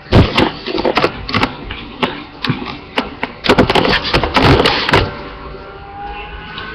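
Irregular knocks and rubbing bumps from a large rubber ball being handled right up against the webcam, dying down about five seconds in.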